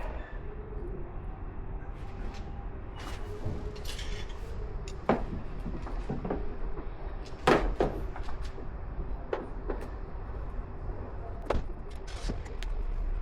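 Scattered sharp clacks and clicks of heavy jumper cable clamps being handled and clamped on, over a steady low hum. The loudest clack comes about halfway through.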